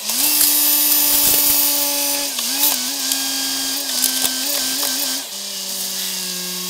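Wheel loader with a hydraulic tree spade working under load, its engine and hydraulics giving a steady whine over a strong hiss. The pitch wavers up and down as the load shifts, then drops to a lower note about five seconds in.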